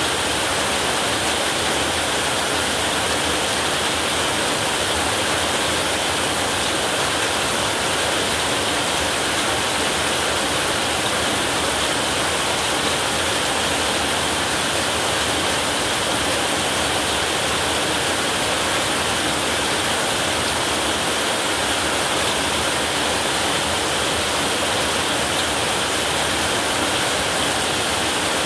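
Heavy rain pouring steadily on a roof: an even, unbroken hiss.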